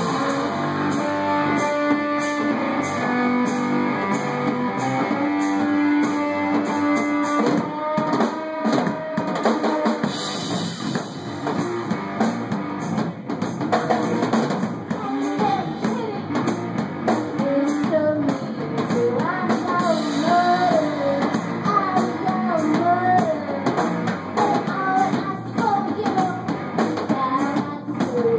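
Live rock band playing: electric guitar and drum kit. Held guitar notes ring through the first several seconds, then the drums come in hard about eight seconds in and the band plays on.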